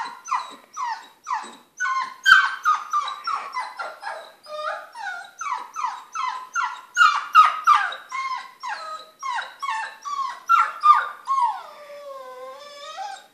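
Bernese Mountain Dog puppy whining and crying: a rapid string of short, high, falling yelps, about three a second, then one long wavering whine near the end. She is balking at going down a flight of stairs.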